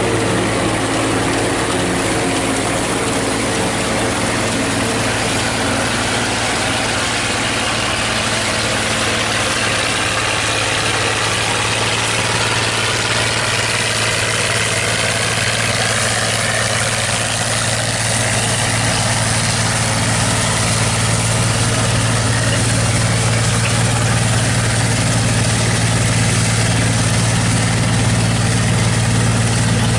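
New Idea 705 Uni System power unit with a Uni Chopper forage harvester, its engine running steadily under load while the chopper cuts corn silage. A steady engine drone sits under the noise of the cutting.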